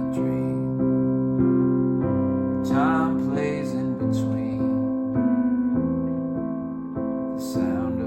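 Piano playing slow held chords that change about once a second, in an instrumental passage of a slow rock ballad.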